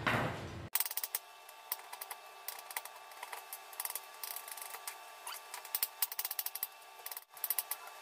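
Kitchen knife chopping garlic on a plastic cutting board: irregular sharp taps in clusters, with a quick run of chops near the end. A brief burst of noise comes before the chopping at the very start.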